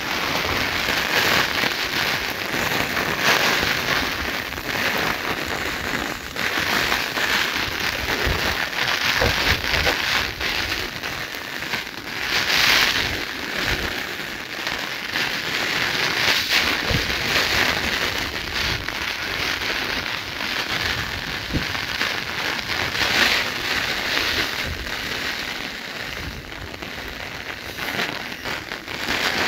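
Steady rain pattering down, swelling and easing every few seconds.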